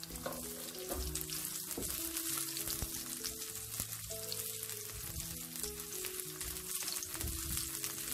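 Ginger and garlic slices sizzling in hot oil in a wok, stirred with a spatula, frying until fragrant. Background music plays underneath with slow, stepping notes.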